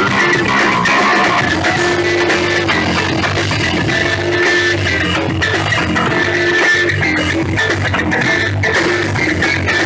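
Funk band playing live: electric bass, drum kit and electric guitar in a steady groove.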